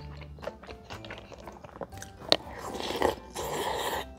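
Close-miked eating sounds: chewing, a sharp click about two seconds in, then a slurp of about a second as a plastic tub is sipped from near the end.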